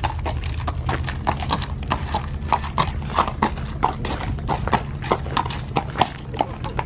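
A horse's hooves clip-clopping at a walk on hard ground: an irregular run of sharp hoofbeats, about three to four a second, over a steady low rumble.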